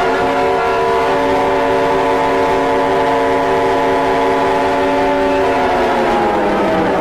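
Emergency-alert siren sounding several steady tones at once, then winding down in pitch about five and a half seconds in.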